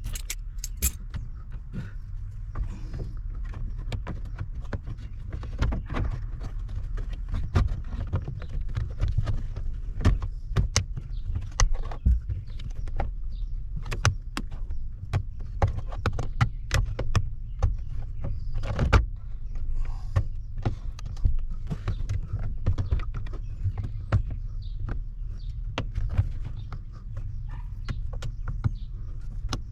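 Irregular clicks and knocks of plastic trim being handled and snapped into place as the lower steering-column shroud goes onto a 1990–1996 Ford F-series column, with one sharper knock a little past halfway, over a steady low rumble.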